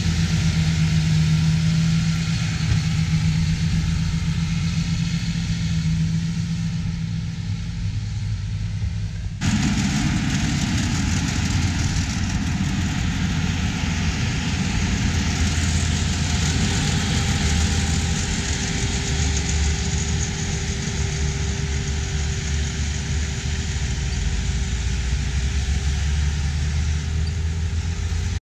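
John Deere 8000-series tractor engine running under load as it pushes silage with its blade. About nine seconds in the sound changes abruptly to a steadier, more distant hum of tractor engines working the silage pile.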